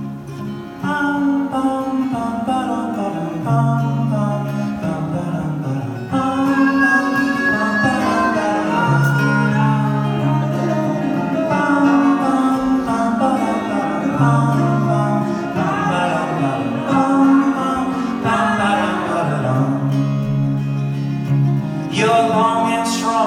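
Two acoustic guitars strumming and picking a slow folk ballad, with male voices singing over them.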